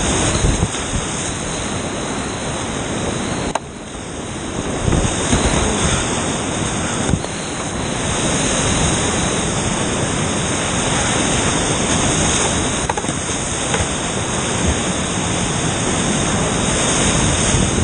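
Whitewater rapid churning and crashing around a kayak: a loud, steady rush of water close to the microphone. The rush dips suddenly about three and a half seconds in, then builds again.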